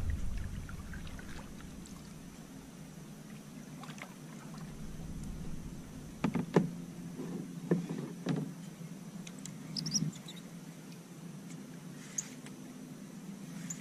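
Paddling a canoe: the paddle dipping and pulling through the water, with several sharp knocks of the paddle against the canoe's hull a little past halfway.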